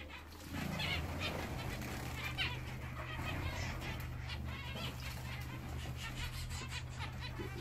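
Zebra finches giving short nasal calls, many times, over a steady low hum.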